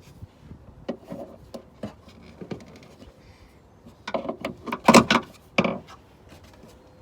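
Working a bonnet gas strut's ball-socket ends off and on: a few light clicks, then a louder burst of clattering and scraping from about four to six seconds in.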